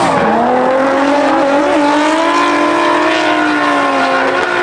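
Two drift cars, a Nissan 350Z and a Nissan S13, with their engines held at high revs through a tandem slide. The note dips briefly at the start and then holds high and steady over the hiss of spinning tyres.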